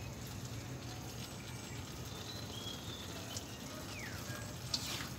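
Steady low hum and hiss of background noise, with a few faint short bird chirps and one falling chirp about four seconds in.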